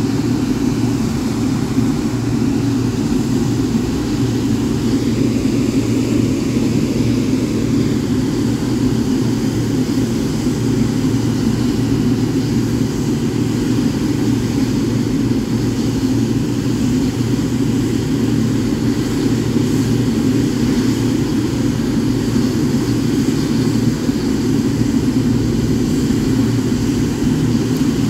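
Boeing 777-9's GE9X turbofan engines idling with a steady, unbroken rumble.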